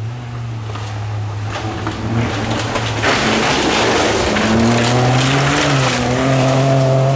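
A 1.5-litre front-wheel-drive Toyota Yaris rally car passing on a gravel stage. Its engine holds a steady high note that climbs about halfway through as it accelerates. A loud rush of tyres on gravel peaks in the middle as it goes by.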